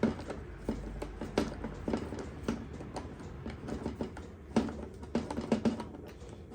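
Irregular metallic clicks and knocks as the parts of a cast-iron cross vice are handled and taken apart.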